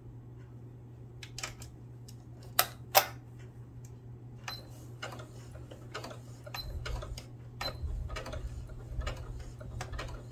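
Singer sewing machine test-stitching fabric slowly after cleaning and rethreading: irregular mechanical ticks about every half second. Two sharper clicks come about two and a half and three seconds in, and a low rumble joins the ticking in the second half.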